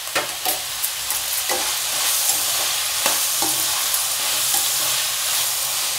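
Sliced mushrooms, capsicum and green peas sizzling in oil in a kadai while being stirred with a metal spatula, which scrapes and knocks against the pan a few times in the first half.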